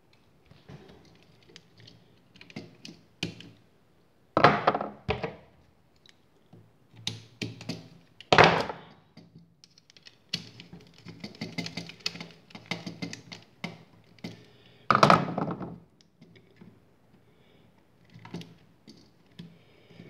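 Scattered clicks, taps and knocks of a metal-strapped wall switch and a screwdriver being handled while wires are fastened under the switch's terminal screws. A few knocks stand out as louder, about four and a half, eight and a half and fifteen seconds in.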